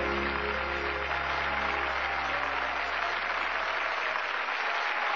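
Audience applauding as the last low note of the song's backing music holds and then fades out about four and a half seconds in.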